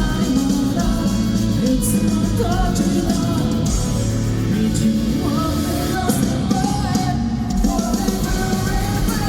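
Rock band playing live: a male singer over electric guitars and a drum kit, loud and continuous.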